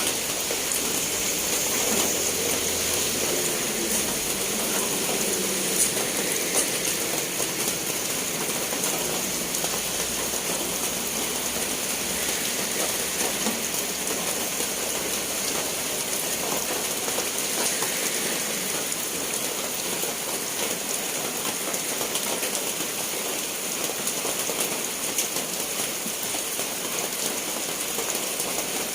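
Steady rain falling, a dense even patter of drops with scattered sharper drips.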